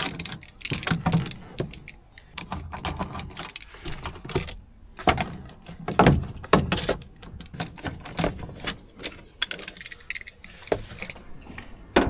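Irregular metallic clicks, clunks and rattles of hand tools and lock parts as the old door lock of a Talbot Express van is worked loose and taken out, with a few sharper knocks a little past the middle.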